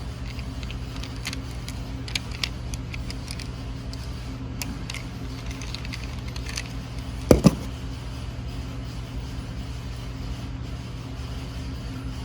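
Small clicks and taps of hand tools fastening a wire onto the terminal of an ATV gear shifter switch, with one louder clunk about seven seconds in, over a steady low hum.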